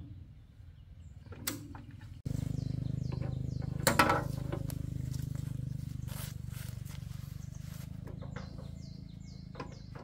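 An engine running steadily, starting abruptly about two seconds in, with a few metallic knocks, the loudest about four seconds in. Two runs of short falling chirps from a bird sound over it.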